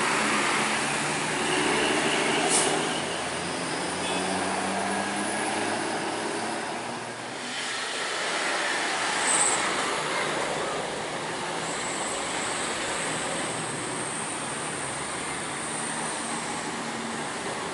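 Heavy, slow road traffic close by: coach and car engines running, tyre noise, and a thin high whine through the second half.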